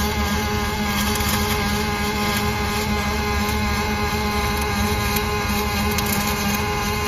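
Robotic arc welding of steel plate: the welding arc buzzing and crackling steadily and without a break as the torch runs along the seam, over an even hum.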